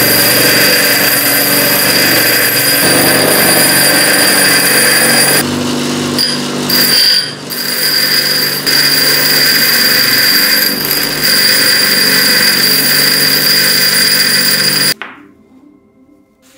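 High-speed electric power tool running with a steady high whine over a loud grinding noise, dropping off briefly around six to seven seconds in, then stopping suddenly near the end.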